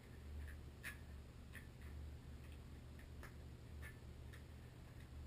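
Light, irregular clicks and taps, roughly one every half second to a second, over a low steady hum: small parts being handled.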